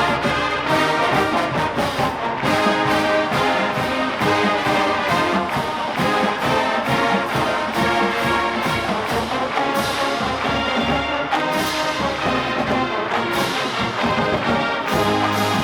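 College marching band playing a brass arrangement, with trumpets and trombones over a drumline keeping a steady beat.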